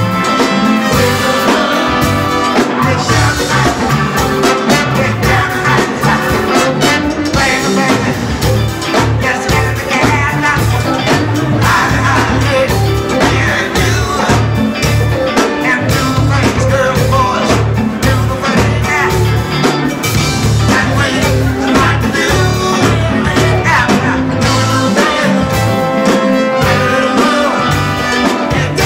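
Live funk and soul band playing: drum kit, congas, bass and electric guitar under a horn section of saxophone, trumpet and trombone, over a steady pulsing bass line.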